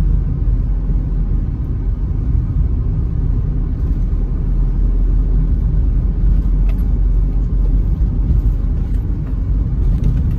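Steady low rumble of a car driving on a rough, patched country road, heard from inside the cabin: engine and tyre noise with a few faint small rattles.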